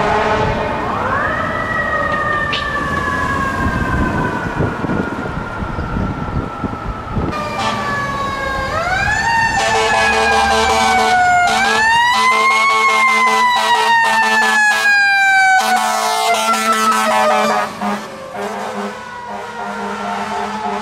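Fire truck's mechanical siren winding up quickly and slowly coasting down, three times. In the middle, horn tones and rapid pulsing siren sounds are layered over it.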